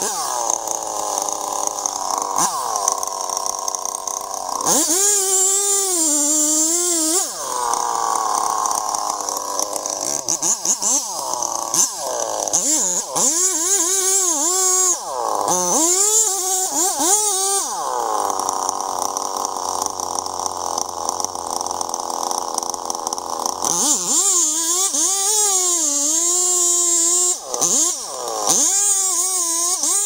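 Large two-stroke chainsaw cutting into the trunk of a huge tree, running hard throughout, its engine pitch wavering up and down as the chain bites and eases in the wood.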